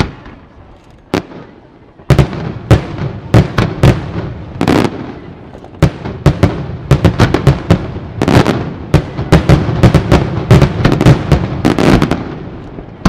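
Aerial fireworks shells bursting: a single sharp bang about a second in, then from about two seconds a dense barrage of bangs, several a second, easing off near the end.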